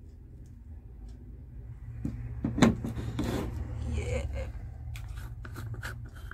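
Small plastic cosmetic jars being handled on a tabletop, with a sharp knock about two and a half seconds in as one is picked up or set down, then the rubbing and scraping of a plastic screw lid being twisted, and several small clicks near the end. A low steady hum runs underneath.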